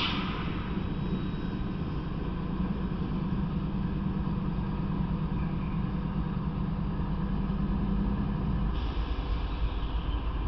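Freight train's diesel locomotive and cars giving a steady low rumble and engine hum. The hum stops about nine seconds in and a steady hiss takes over.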